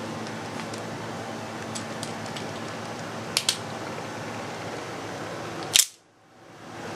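Two quick small metal clicks, then a single louder sharp snap near the end, from switchblades being handled, over a steady fan hum.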